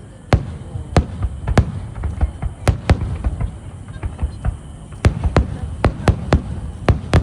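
Fireworks exploding overhead: a rapid, irregular series of sharp bangs over a low rumble, coming thicker and faster in the last couple of seconds.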